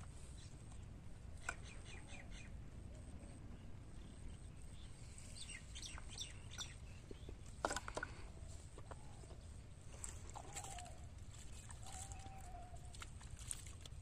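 Faint outdoor pond-side ambience: a steady low rumble with scattered short bird chirps and drawn-out distant fowl calls, the longest in the second half. Two sharp clicks come a little past the middle.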